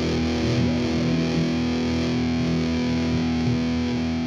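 Distorted electric guitar music: a chord held and ringing, with a few sliding notes over it in the first second or so.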